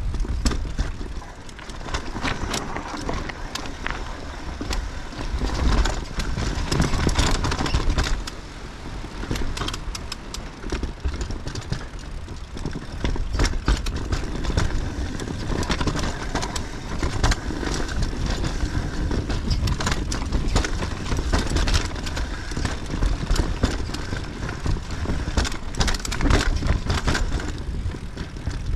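Mountain bike riding down a rooty, bumpy dirt trail: tyres rolling over dirt and roots, with frequent irregular rattles and knocks from the bike as it hits the bumps, over a steady low rumble.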